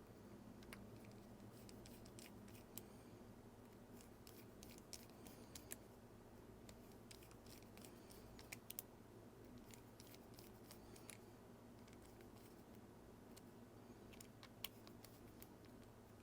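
Near silence with faint, scattered small clicks and light scrapes of a watch's back cover and screws being handled and fitted with small tools.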